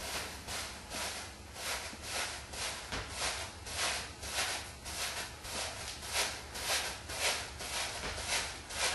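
Hair being backcombed (teased) close to the microphone: short rasping strokes repeating steadily about twice a second as the comb is pushed down the ponytail toward the scalp to build volume.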